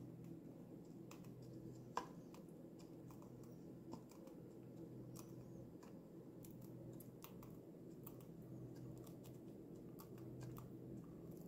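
Lutino cockatiel pecking and husking seeds from a pile of mixed birdseed: faint, irregular small clicks and cracks, one sharper about two seconds in, over a low steady hum.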